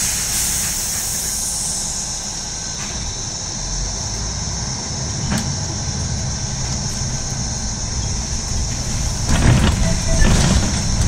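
Mercedes-Benz Citaro G articulated diesel bus heard from inside as it pulls away: a burst of air hiss at the start that fades over about two seconds, then the steady low rumble of the running bus, growing louder with rattling from about nine seconds in as it gathers speed.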